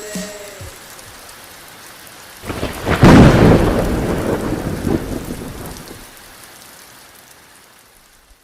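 Steady rain with a thunderclap about two and a half seconds in that rumbles and dies away over the next few seconds; the rain then fades out.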